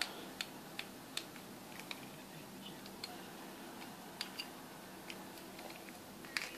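Light, irregular clicks and ticks of small hand work on a plastic key-fob camera: a tiny screwdriver on the case screws and the plastic case being opened. A faint steady hum runs underneath.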